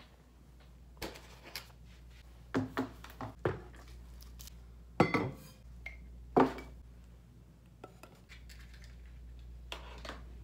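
Scattered clinks and knocks of hard objects being handled: a metal spoon against a ceramic soup bowl, then things being set down on a wooden desk. There are about ten short hits, the loudest about five and six and a half seconds in.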